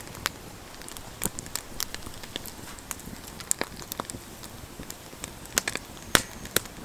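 Wood campfire crackling: irregular sharp pops and snaps, several a second, over a faint hiss.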